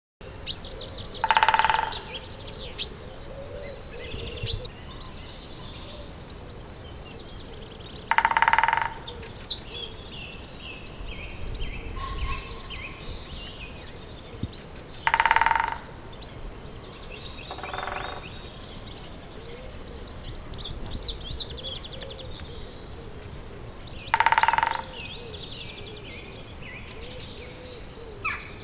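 Woodpecker drumming in short rolls of rapid taps, each under a second long, five times at intervals of several seconds, one of them fainter. Songbirds chirp and sing throughout.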